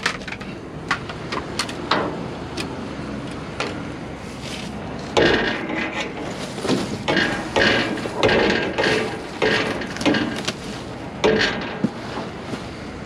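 Rummaging through dumpster contents: a run of knocks, clatters and rubbing as objects are pushed and lifted about. The handling is busiest from about five to ten seconds in.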